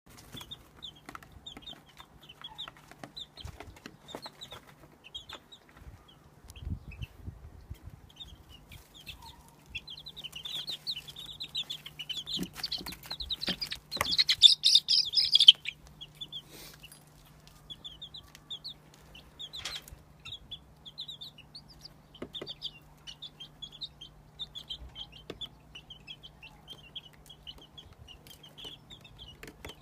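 Baby chicks peeping steadily. About halfway through, a sudden sharp noise sets off a louder, denser burst of peeping that lasts a second or two, then the peeping settles back to its earlier level. A steady low hum lies underneath.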